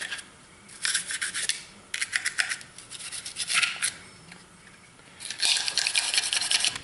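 A cleaning brush scrubbing inside a Glock 30 pistol's polymer frame, in three bursts of rapid scratchy strokes: about a second in, through the middle, and again near the end.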